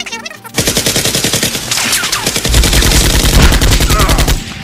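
Rapid automatic gunfire sound effect, a fast, even burst of machine-gun shots that starts about half a second in and gets heavier about halfway through.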